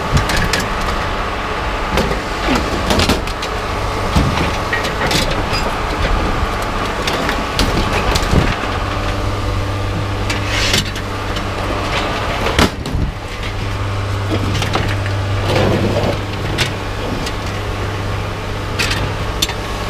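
A steady engine hum, with scattered knocks and clanks of scrap being shifted in a pickup truck bed.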